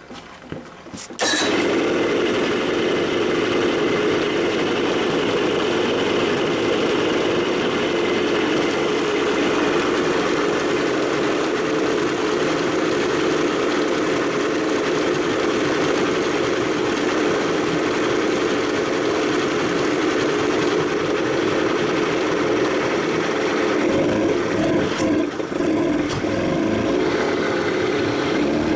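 1988 Evinrude 55 HP commercial two-stroke outboard starting about a second in, then running steadily.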